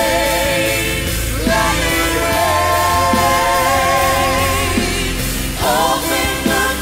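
Church praise band with singers performing a worship song: voices holding long sung notes over a sustained band accompaniment, with new vocal lines coming in about a second and a half in and again near the end.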